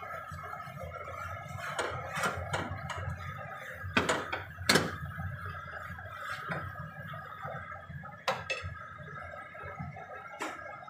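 Plastic slotted spatula scraping and knocking against a non-stick frying pan while stirring a bubbling garlic-and-flour mixture. The loudest knocks come about four and five seconds in, with another near eight seconds.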